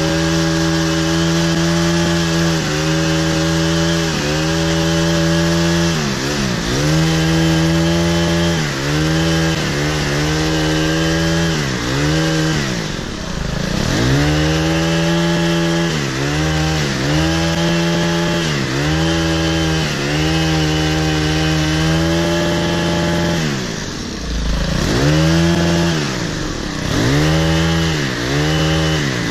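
Stihl KM90R kombi engine, a small four-mix petrol engine, driving an articulating hedge trimmer head at high revs as it cuts a hedge. The engine note dips and recovers about once a second, with deeper drops near the middle and about three-quarters through.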